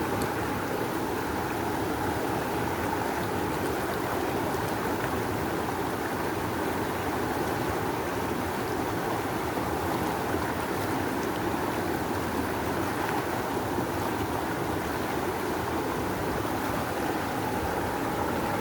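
Rushing river water, a steady full rush of current with no let-up.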